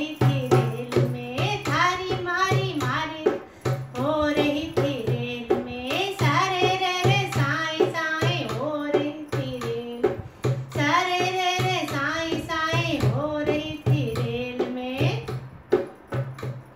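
A woman singing a Hindi banna-banni wedding song in a melody broken into phrases with short breaths between them, accompanied by her own dholak, a two-headed barrel drum struck by hand in a steady beat.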